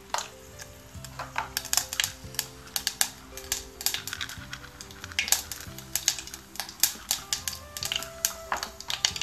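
Mustard seeds spluttering in hot oil, a quick irregular run of sharp pops and crackles with a frying sizzle beneath, growing denser about a second in. Soft background music plays under it.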